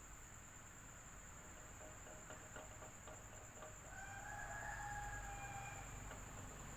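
Faint steady electric fan hum with a thin high whine. About four seconds in, a faint pitched call is held for about a second and a half over it.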